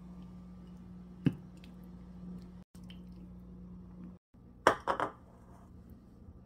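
Kitchen dish and utensil sounds over a steady low hum: a single sharp clink about a second in, then a quick run of three or four clinks of crockery or a spoon about five seconds in. The hum breaks off briefly twice.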